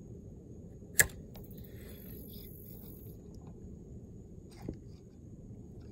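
A single sharp knock about a second in from the phone camera being handled, with a fainter knock near the end, over a steady low rumble.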